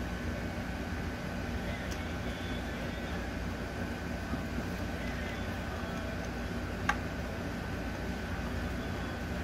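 Steady low background hum with a thin steady whine above it. One sharp click comes about seven seconds in and a faint one about two seconds in, as the fuel rail and its new fuel injectors are handled and fitted.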